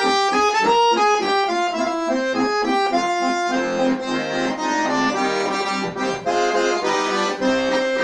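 Chromatic button accordion playing an instrumental interlude between sung verses: a quick run of short melody notes for the first few seconds, then longer held notes over a steady bass-and-chord accompaniment.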